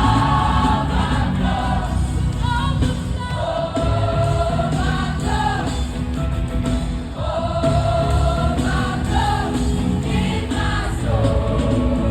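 Gospel music: a choir singing held, sliding lines over full instrumental backing with a heavy bass.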